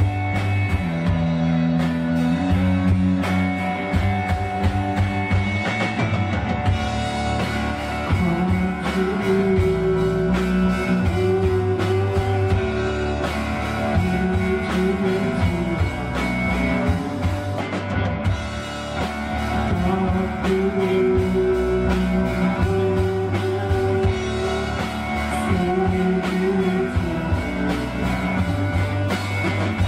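Rock band playing live: drum kit with electric guitars, holding long notes over a steady beat.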